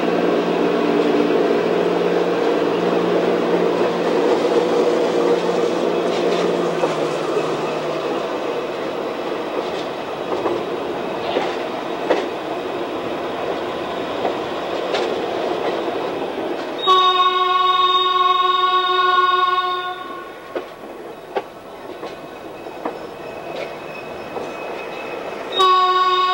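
A train rolling slowly, its locomotive engine running and its wheels clicking over rail joints. The train horn sounds one long blast of about three seconds just past the middle, and starts another near the end.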